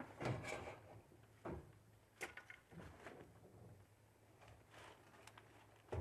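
Faint scrapes and creaks of a Halligan bar levering against a steel garage door track, bending and twisting it out of alignment; a few short sounds, mostly in the first half.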